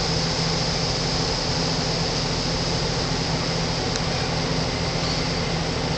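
Off-road 4x4's engine running steadily at an unchanging pitch, with a constant high hiss over it.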